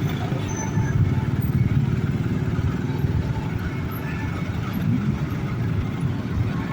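Steady low rumble of road traffic, with vehicle engines running past; no horn sounds.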